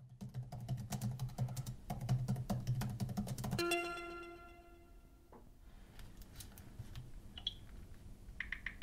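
Fast typing on a laptop keyboard: rapid key clicks over a low steady hum. A bit over a third of the way in, the hum stops and a single ringing note sounds and fades. Lighter, sparser taps follow.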